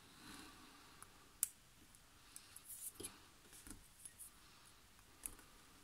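Faint, scattered small clicks and taps as replacement wheels on axles are fitted into a die-cast toy car's metal baseplate with tweezers; the sharpest click comes about one and a half seconds in.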